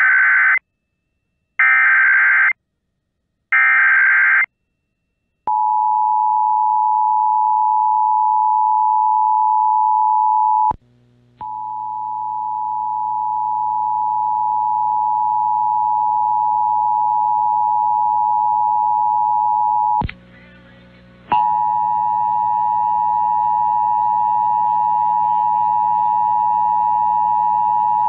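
Emergency Alert System broadcast tones: three short bursts of SAME digital data, then the steady two-tone EAS attention signal. The attention signal cuts out briefly twice, about 11 seconds and 20 seconds in.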